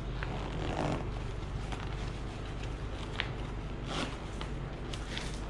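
Outer zip and leather upper of a Royal Enfield mid-rise leather touring boot being worked closed by hand: soft scraping and rustling with small clicks, over a steady low hum.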